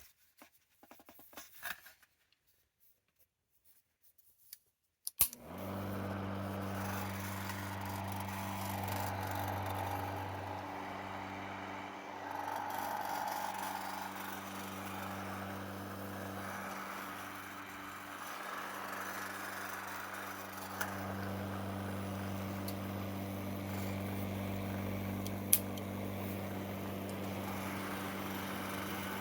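Vintage chrome Handy Hannah hair dryer switched on with a click about five seconds in, then running steadily: a motor hum with a rush of blown air. A few faint handling sounds come before it, and there is a single sharp click near the end.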